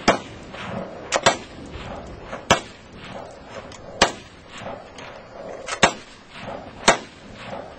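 Military-style rifle fired in single shots at an uneven pace: about seven sharp cracks over some seven seconds, two of them in quick succession about a second in.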